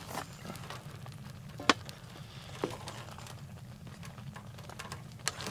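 Wooden spoon scooping pasta out of a steel pot onto a metal plate, with three sharp knocks of the spoon against the metal, the loudest about one and a half seconds in. A steady low hum runs underneath.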